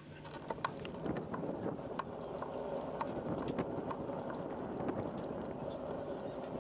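Bicycle rolling along a wooden pontoon deck, its tyres knocking over the plank joints every fraction of a second, over a steady rumble of rolling and wind noise on the microphone.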